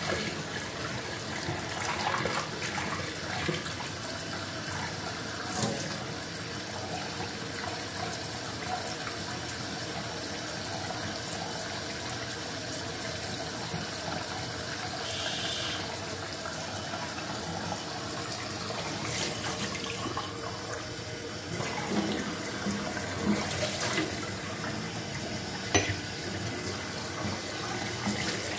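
Kitchen tap running steadily into a stainless-steel sink, with a few short clicks and knocks. Near the end a glass is held under the stream.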